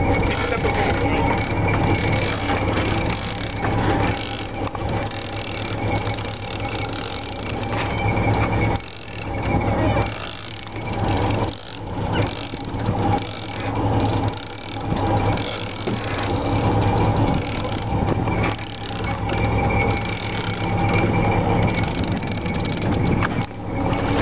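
Big-game trolling reel being cranked against a hooked fish, its gears and ratchet clicking, with a boat engine running steadily underneath. From about a third of the way in, the cranking comes in surges roughly every second and a half.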